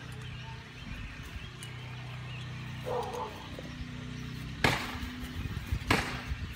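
Two loud, sharp knocks about a second and a half apart, over a steady low hum.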